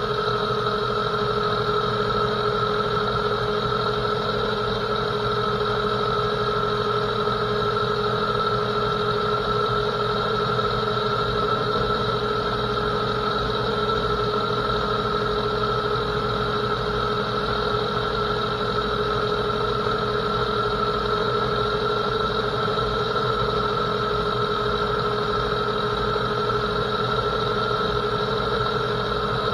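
Metal lathe running steadily under power feed while a WNMG trigon carbide insert takes a 15-thousandths turning cut on 12L14 steel: an even machine hum with a steady whine and no change in pitch.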